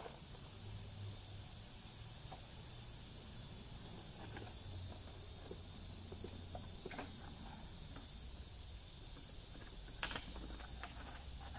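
Quiet outdoor background: a steady high hiss, with a few faint taps and one sharper click about ten seconds in.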